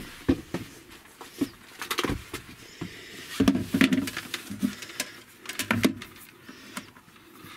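Irregular light knocks, clicks and scraping from hands and the camera moving around inside a plywood cubby, with a denser run of thuds and scrapes about halfway through.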